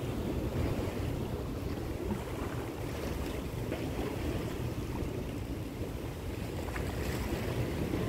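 Steady low rumble of wind buffeting the microphone, over the wash of sea water at a waterfront.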